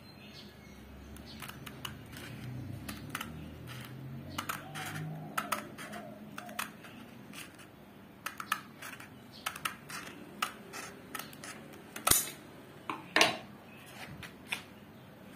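Hand shears snipping through cloth-backed abrasive sandpaper in a long series of short cuts, with two louder sharp snaps near the end.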